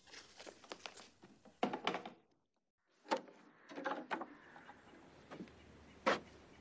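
A string of knocks and thuds, with a moment of dead silence about two and a half seconds in.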